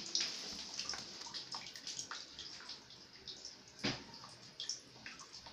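Water running and splashing in small irregular drips and splashes as a cat plays in it, with one louder splash about four seconds in.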